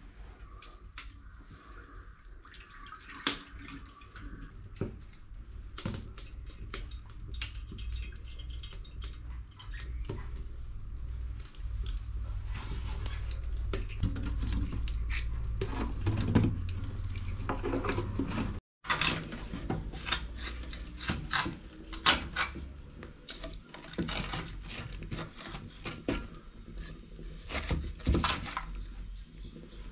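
Cooking oil poured from a plastic jug into a large metal pan, heaviest in the middle, over the irregular crackle of a wood fire. After a short break only the fire's crackling and small knocks remain.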